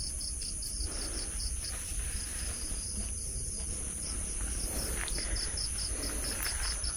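Night insects chirping: crickets in quick pulsed trains of about five or six chirps a second, which pause and start again, over a steady high-pitched insect drone.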